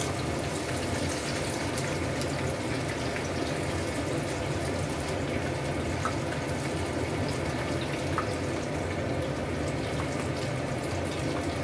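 Oil sizzling steadily as banana turon fry in a pan, with a few faint small pops.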